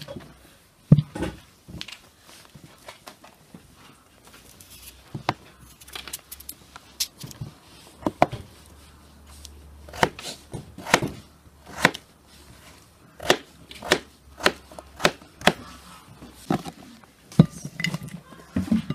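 A kitchen knife slicing and dicing raw peeled potatoes on a wooden cutting board: a sharp knock each time the blade meets the board, irregular, about one or two a second.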